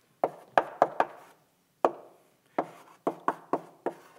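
Chalk writing on a blackboard: a string of sharp taps and short scrapes, a few scattered ones in the first two seconds, then a quicker run of about five in the second half.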